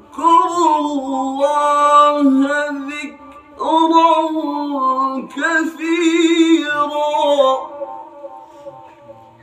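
A man reciting the Quran in a melodic, drawn-out style, holding long ornamented notes. There are two long phrases with a short breath between them about three seconds in, and the voice trails off about two seconds before the end.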